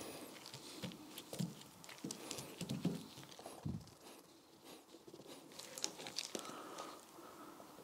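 Faint, irregular dabbing and rustling of nitrile-gloved hands pressing polyester-resin-soaked glass-fibre mat down onto a car bonnet panel, with scattered small clicks and a few soft knocks.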